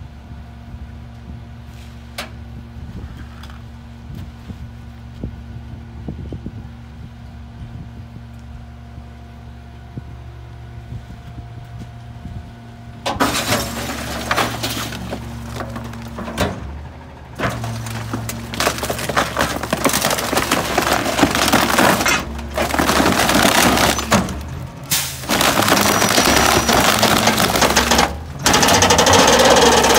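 McNeilus rear-loader garbage truck idling with a steady low hum. About 13 seconds in, its packer blade starts crushing a couch in the hopper: loud cracking and splintering of the wooden frame, in several long stretches with brief pauses, loudest near the end.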